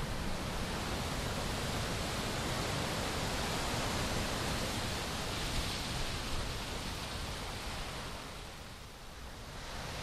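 Steady rushing hiss-like noise with no distinct strokes or tones. It swells through the middle and fades away near the end.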